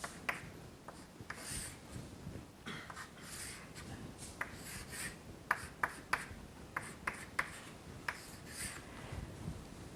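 Pen writing: short scratchy strokes and sharp little taps at irregular intervals.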